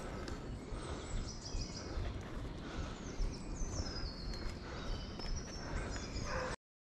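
Woodland birds singing, with several high chirps and a falling run of notes around the middle, over a steady outdoor background. The sound cuts out abruptly just before the end.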